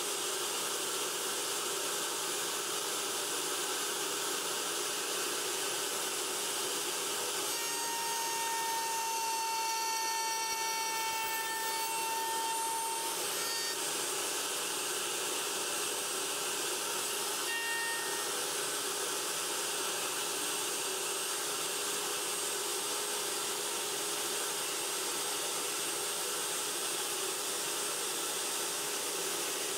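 Table-mounted router running steadily as its dovetail bit cuts slots in a board clamped to the jig's carriage. A higher ringing tone joins for about six seconds starting some seven seconds in, and comes back briefly a few seconds later.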